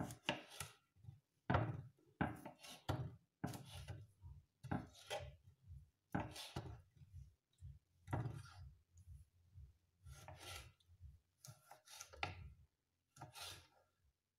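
Kitchen knife cutting ripe tomatoes into wedges on a wooden cutting board: irregular, faint knocks of the blade against the board, with short pauses between cuts.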